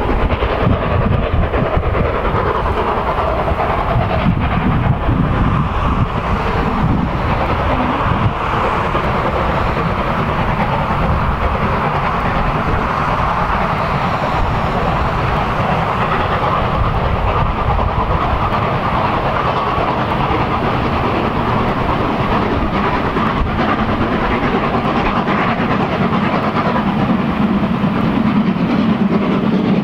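Steam train running along the line, a steady rumble of the locomotive and the wheels on the rails, with a low hum coming up near the end.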